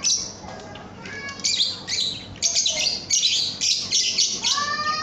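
Young lovebird chattering song: bursts of rapid high chirps and trills, with a couple of rising whistled notes near the end.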